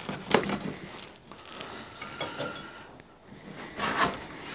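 Cardboard box being opened: a blade slitting the packing tape with sharp scratchy scrapes, then the cardboard top flap pulled up with a louder rustling scrape about four seconds in.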